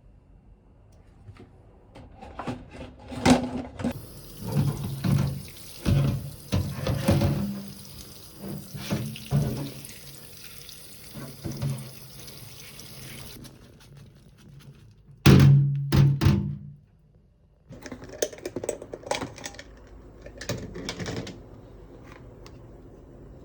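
Kitchen tap running into a sink, with repeated knocks and clatter of dishes and utensils. The water stops about halfway through, and further knocks and clatter follow.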